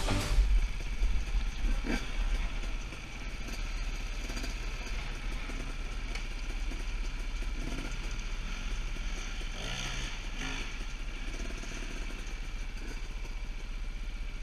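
Enduro motorcycles running: a Husaberg 450FE four-stroke single idling steadily close by, with other dirt bikes running further off. Louder and more uneven for the first three seconds, then steady.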